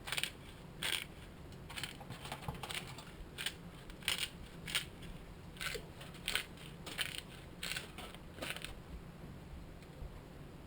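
Hand pepper mill grinding peppercorns: a series of short crunching rasps, about one or two a second, each a twist of the mill.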